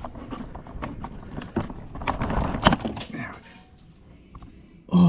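Plastic clicks and knocks from pulling at a car door panel's wiring harness connector, with a louder snap about two and a half seconds in as the window switch plug pulls out of the panel.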